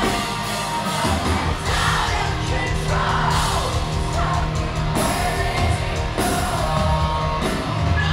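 Post-hardcore rock band playing live through a venue PA: electric guitars, bass and drums with sung and yelled vocals.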